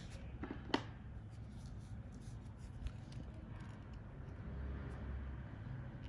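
Light handling sounds of a small metal pin and a pair of diagonal cutters on a tabletop: a sharp click about three-quarters of a second in, a small knock near three seconds, then soft rustling as the cutters are brought up to the pin.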